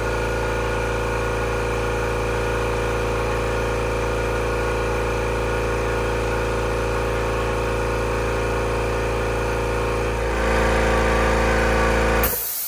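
Kobalt Quiet Tech 26-gallon oil-free electric air compressor running steadily with a motor hum as it does its first fill of the tank. About ten seconds in its note changes and gets louder. Near the end a sharp hiss of air comes in and the sound dies away, as the compressor shuts off.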